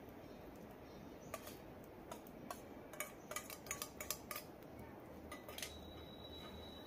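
Steel cooking utensils clinking: a spoon tapping and scraping against a metal pan and bowl in a quick irregular run of light clinks, then one more strike near the end that leaves a thin high ring for about a second.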